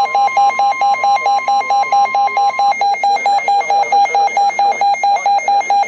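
A weather radio receiver's alert alarm: a harsh electronic beep pulsing steadily about four times a second. It is set off by a NOAA Weather Radio warning alarm tone, a steady tone heard faintly under the beeps until about three seconds in.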